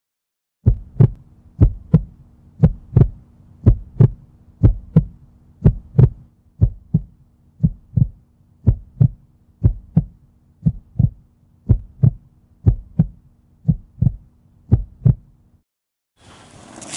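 Heartbeat sound effect: a slow lub-dub double thump about once a second, over a low steady hum. It stops about a second before the end.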